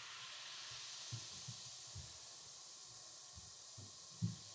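Baking soda and vinegar reacting in oobleck: a steady, faint fizzing sizzle of tiny bubbles popping. A few soft low bumps come through, the loudest about four seconds in as a glass of vinegar is tipped in.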